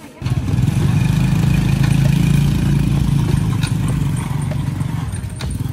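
Diesel engine of a farm tractor-cart (xe máy cày) running with a fast, clattering chug. It comes on suddenly just after the start and stays loud throughout.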